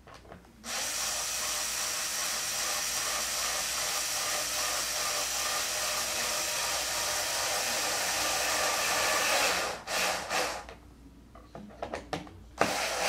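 Electric drill/driver running steadily for about nine seconds as it drives screws into a foam airframe, then a few short bursts near the end as the screws are snugged down.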